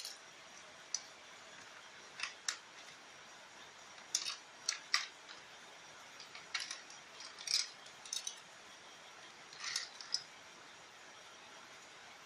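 Scattered sharp clicks and clacks of small hard objects being handled, about a dozen in irregular clusters.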